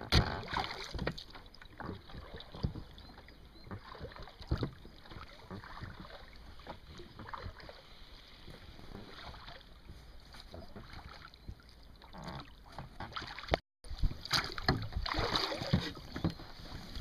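Water splashing and lapping against the rubber hull of an inflatable rowing boat, with irregular knocks. Near the end come louder splashes of oars being pulled through the water.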